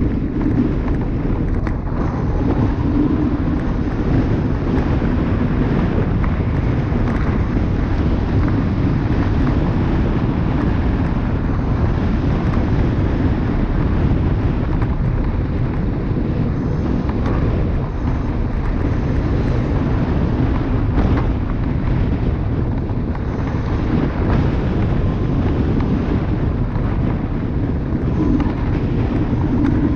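Dualtron Thunder electric scooter riding along at speed: wind buffeting the microphone over the hum of its tyre rolling on rough asphalt, a steady dense rush with no let-up.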